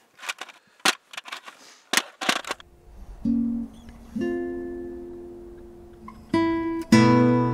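A few sharp knocks and clatters as a folding metal-framed shooting stool is handled and set down, then, about two and a half seconds in, plucked-string music begins with slow ringing notes, swelling with a fuller chord near the end.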